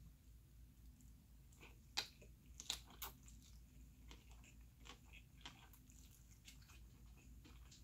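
Faint, close-miked eating sounds of thick sauced ramen noodles: a few sharp clicks about two to three seconds in, then a run of soft, wet ticks.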